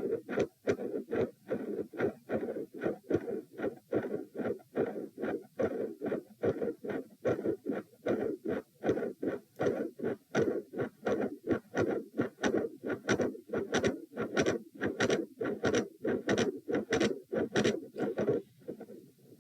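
Heart sounds of a heart with a midsystolic murmur, picked up by a stethoscope over the pulmonary area during an attempted Valsalva manoeuvre. A fast, regular run of beats plays over a steady noise, and the noise drops away near the end.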